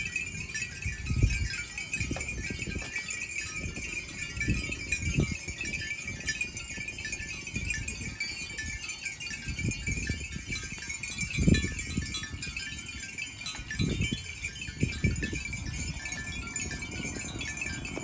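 Bells on a herd of water buffalo clinking and tinkling irregularly as the animals walk, over a steady high-pitched drone, with a few dull low thumps.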